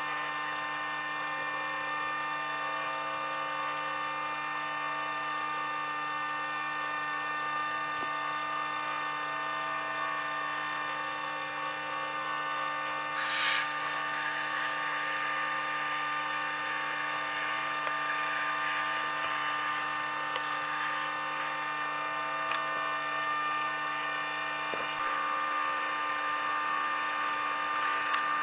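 Outrigger boat's engine running steadily under way, a constant many-toned drone. A brief rush of noise cuts across it about thirteen seconds in, and one of its lower tones drops away near the end.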